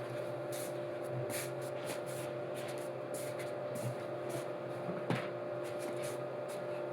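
Steady electrical hum with faint steady tones, brief rustles every second or so, and a single sharp click about five seconds in.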